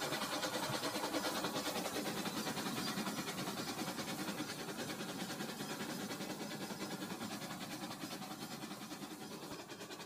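Toy trains running on plastic track: a steady, fast, even rattling clatter of small wheels and motors, easing off slightly toward the end.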